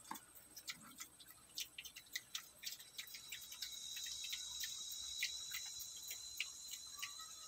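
Piglets eating dry feed off a concrete floor: many short, sharp crunches and clicks as they chew and nose the grain. From about three seconds in, an insect's steady high buzz joins.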